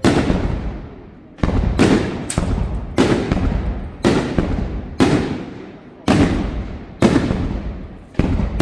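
Fireworks going off: about ten loud bangs, roughly one a second with a quick cluster near two seconds in. Each bang is followed by a long rumbling echo that fades before the next.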